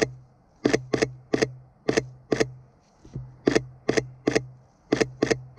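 Sony A7 III camera shutter firing single frames in quick succession: about a dozen sharp clicks at uneven spacing, some coming in quick pairs.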